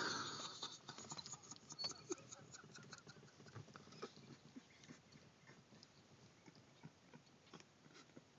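Near silence with faint, scattered clicks. A loud sound dies away in the first half second.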